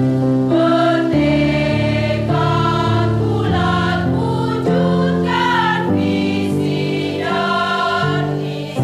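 Women's choir singing together, holding notes that change every second or so.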